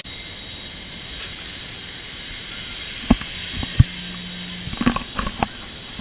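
Steady hiss picked up through a GoPro sealed in its waterproof case, with a few soft knocks about halfway through and a short cluster of faint taps near the end.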